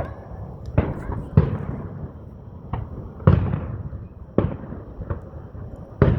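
Aerial fireworks bursting: about seven sharp bangs at uneven intervals, each trailing off in a rumbling echo, the loudest about a second and a half in, a little past three seconds, and near the end.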